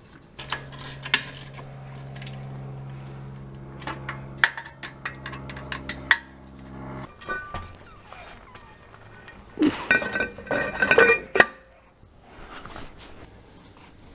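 Metal clinks and clatter of hand tools and brake parts as a rear axle shaft, brake rotor, caliper and wheel are refitted, sped up in a time-lapse, with a dense run of rapid clicks about ten seconds in. A steady low hum runs underneath and stops abruptly about seven seconds in.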